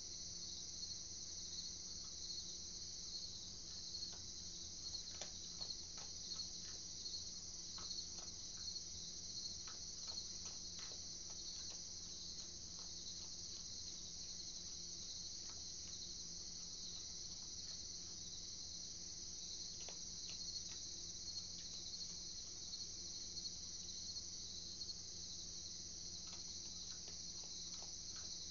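Night chorus of crickets, a steady pulsing high trill, over a low steady hum, with scattered faint clicks.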